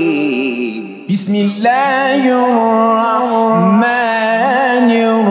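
A man reciting the Quran in the melodic mujawwad style, drawing out long ornamented notes with a wavering vibrato. The voice breaks off briefly about a second in, then takes up the melody again.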